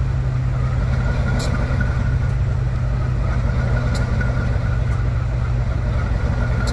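GE U23B locomotive's 12-cylinder FDL diesel engine running steadily with an even, low drone, a few faint ticks over it.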